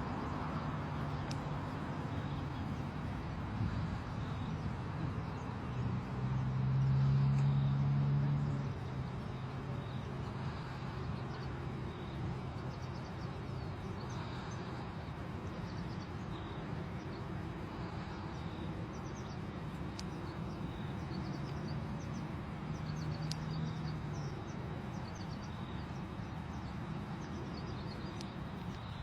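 Steady outdoor background noise with a low engine-like hum that swells and fades twice, loudest about a quarter of the way in. Faint high bird chirps are scattered through the second half.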